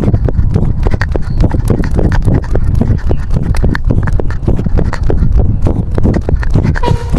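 Close-up clicks and knocks picked up by a camera worn on a cat's collar as the cat moves: a rapid, irregular series of sharp taps over a low rumble.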